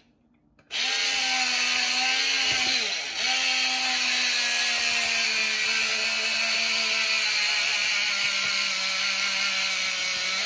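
Battery-powered 1980s cordless citrus juicer running four D cells, its small electric motor whirring steadily as lemon halves are reamed. It starts about a second in, and its pitch dips briefly about three seconds in before recovering.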